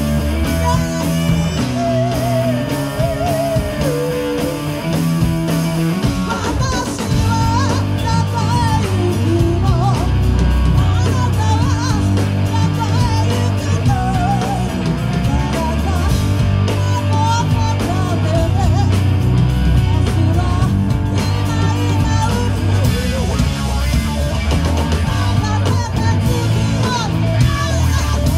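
Live rock band of electric guitar, bass guitar and drum kit playing with a singer's vocals over it. The band gets fuller and heavier in the low end from about seven seconds in.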